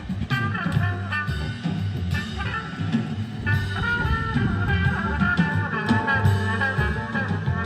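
Swing-style jazz with brass and a rhythm section, played through an EL34 tube amplifier and speakers and picked up in the room.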